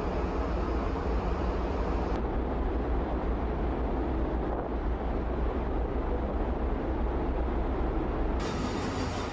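Steady rushing noise on a ferry's open deck under way: wind on the microphone over the ship's engine rumble and the wake water. The sound changes abruptly about two seconds in and again near the end.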